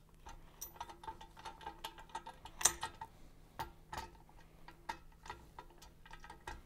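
Wheels and washers being slid onto a steel axle rod: a run of irregular light clicks and metallic taps, some with a short ring, the loudest about two and a half and four seconds in.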